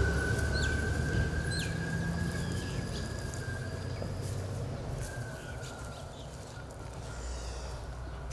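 A vehicle's engine rumble fading away during the first few seconds, with a few short high bird chirps and a thin steady high tone over quiet rural background.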